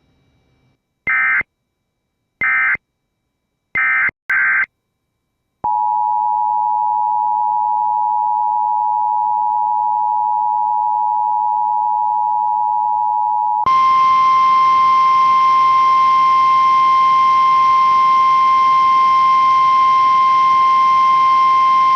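Emergency Alert System broadcast tones. First come a few short bursts of warbling digital data, the end-of-message code closing the previous alert. Then the two-tone EAS attention signal holds steady for about eight seconds and switches abruptly to a single steady 1050 Hz NOAA Weather Radio alert tone over hiss.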